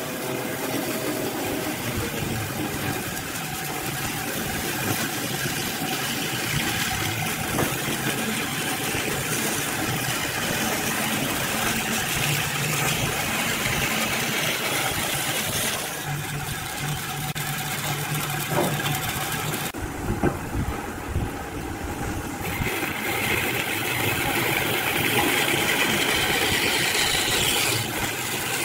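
Band saw running, its blade cutting through a dry, cracked, weathered slice of log with a steady cutting noise. The cutting noise drops away for a couple of seconds about two-thirds through, then comes back stronger near the end.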